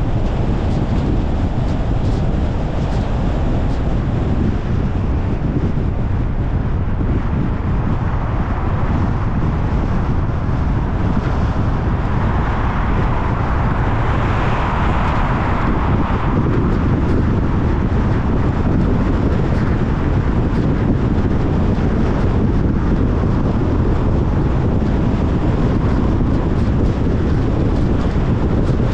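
Steady tyre, road and wind noise of a Tesla Model Y Long Range on the move, an electric car with no engine sound, with a brief swell of brighter hiss about halfway through.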